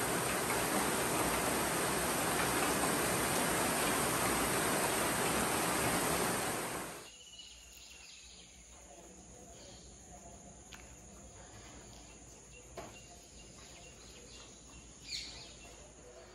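Steady rain falling, an even hiss, which cuts off sharply about seven seconds in. A much quieter stretch follows, with a few faint clicks and a short high chirp near the end.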